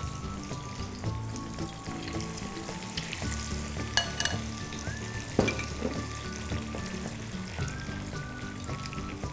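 Batter-coated chicken wings deep-frying in hot oil on a low flame, sizzling steadily, with a couple of sharp clicks about four and five seconds in.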